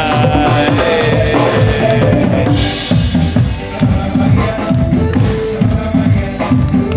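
Upbeat dance music from a street-party band, led by a steady drum beat with hand drum and percussion over repeated horn-like melody notes.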